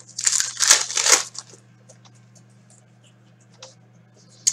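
Hockey trading cards slid and handled between the hands, giving a short papery rustle in the first second or so, then a faint tick later.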